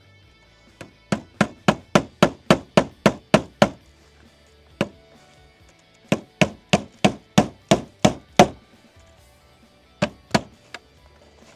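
Hammer driving nails through metal roof flashing into the fascia board: two quick runs of about ten even blows at roughly four a second, a single blow between them, and three more near the end.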